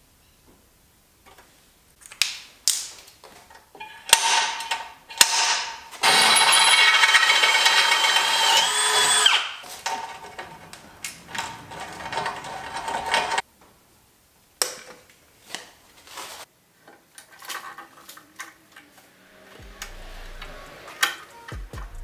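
Power drill boring a hole through the steel rear bar: it runs loud for about three and a half seconds starting about six seconds in, then more quietly for a few seconds. Clicks and knocks of tools and metal parts come before and after.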